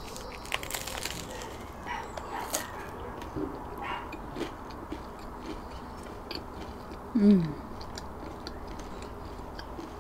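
Biting into and chewing a crusty baguette sandwich: a crackle of crunching crust in the first second, then scattered softer crunches of chewing. A short falling tone sounds once, about seven seconds in.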